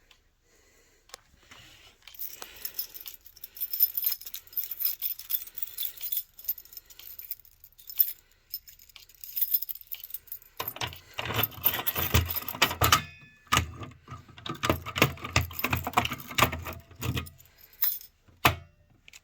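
A bunch of keys jangling and rattling in bursts, then a run of quick clicks and knocks from about ten to seventeen seconds in.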